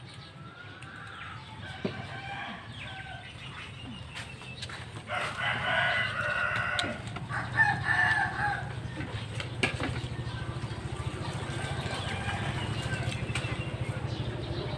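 Rooster crowing, loudest about five to eight seconds in, with fainter calls before, over a low steady hum.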